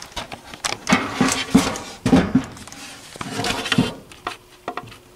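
Knocks, clicks and scraping from a wooden stove-top cover being lifted and moved by hand, with handling noise.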